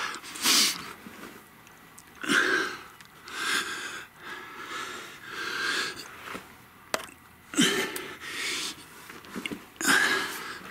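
A man breathing hard with effort: loud, wheezy breaths every second or two as he crawls on his belly through a cramped crawlspace. There is a single sharp click about seven seconds in.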